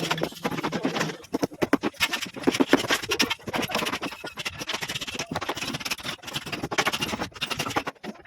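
Irregular clatter of shuttering work: a dense run of knocks, clicks and scraping as formwork materials are handled. A low steady hum runs under it for about the first second.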